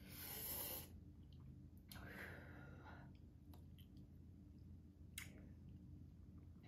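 Near silence with a person's breathing: a hissing breath at the start and a softer one about two seconds in, taken against the chili burn. A sharp click comes about five seconds in, with a few faint ticks.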